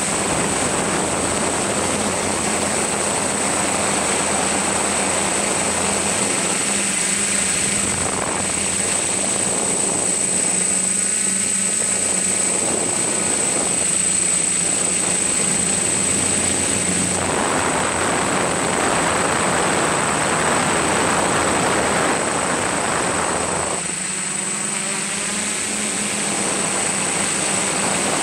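Motors and propellers of a radio-controlled aircraft, heard from the camera it carries: a steady high whine over a low hum and rushing noise, changing in strength a few times during the flight.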